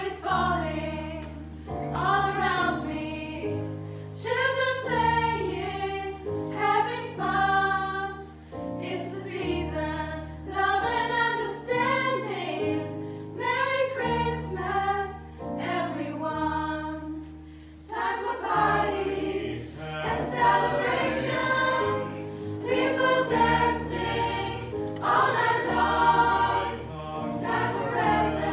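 Student choir of mostly female voices singing a Christmas song in harmony, phrase after phrase, over a steady low bass line.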